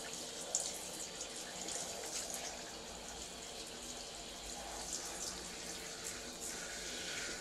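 Handheld shower head spraying water onto a small dog's wet fur in a bathtub: a steady hiss of running water with light splatters.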